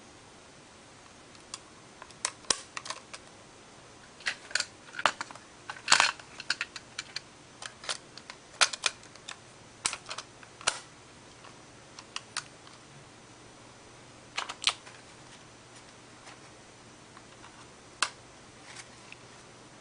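Irregular sharp plastic clicks and clatters from handling a Sony WM-EX66 Walkman cassette player, its casing and parts being opened, moved and snapped. The clicks come thickest in the first half, with a few more near the end.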